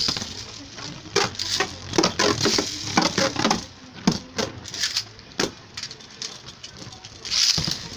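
Beyblade launcher ripped at the start, setting a plastic spinning top whirring in a plastic stadium, followed by a run of rapid clicks and clattering. Another sharp launch rip comes near the end.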